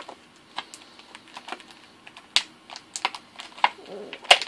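Stiff clear plastic packaging crackling and clicking in irregular snaps as an action figure is worked free of it by hand. The sharpest snaps come about halfway through and near the end.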